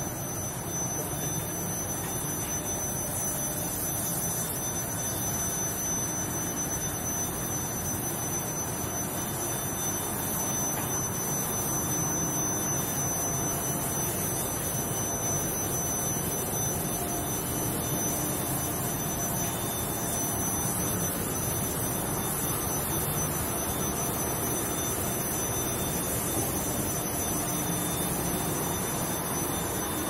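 Induction heating and quenching line for rolled steel running: a steady machine noise with a constant high-pitched whine.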